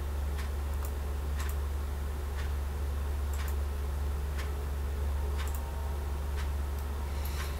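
Steady low hum with a sharp, regular tick about once a second, like a clock, and a few fainter extra clicks between the ticks.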